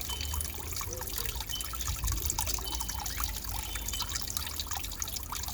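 Water splashing and trickling in small irregular splashes: a young starling bathing.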